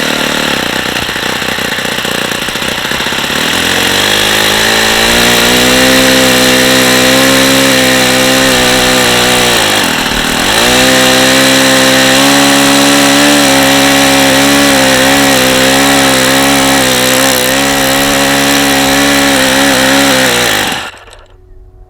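Saito FA-45 four-stroke glow model engine running at high revs. Its pitch climbs a few seconds in, dips briefly about ten seconds in and comes back up, then the sound stops abruptly near the end. The running carries the noise of badly worn bearings, which the owner calls really bad.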